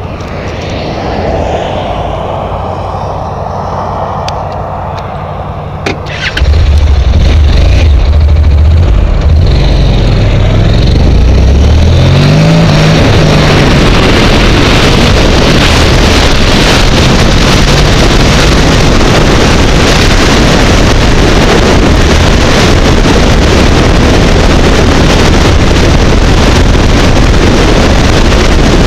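Honda NC700X parallel-twin engine pulling away and accelerating, its pitch rising through the gears. The sound jumps suddenly loud about six seconds in and settles into a steady rush of wind on the helmet-mounted camera at highway speed.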